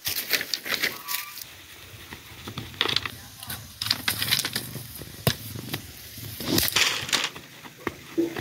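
Dry sticks and brush crackling and snapping in irregular sharp cracks as they are handled and trodden on.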